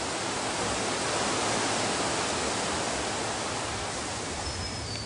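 Waterfall rushing: a steady, even rush of falling water that swells slightly early on and then slowly eases off.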